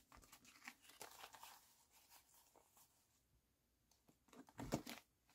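Faint rustling and crinkling of paper banknotes being handled and counted, fading almost to silence midway, with a few louder rustles about four and a half seconds in.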